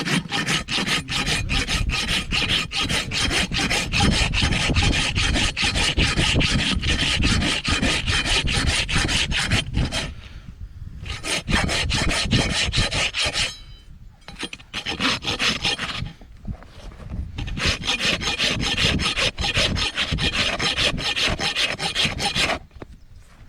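A hand tool scraping back and forth across a donkey's hard hoof horn in rapid strokes, with short breaks about ten, fourteen and sixteen seconds in; it stops near the end.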